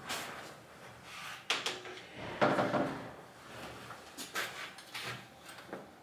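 Handling knocks and bumps of a metal-framed solar panel being carried and set down. There are several separate thuds, the loudest a little over two seconds in.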